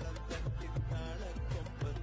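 Background music with a steady bass beat and melody.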